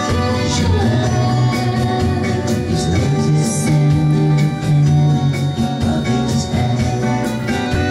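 Band music with a steady beat.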